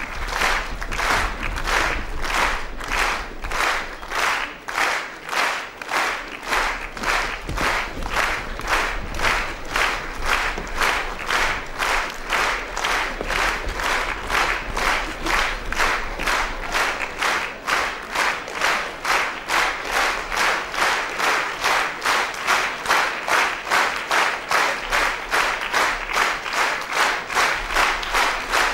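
Theatre audience clapping in unison, a steady rhythmic applause of about two and a half claps a second that keeps an even pace throughout.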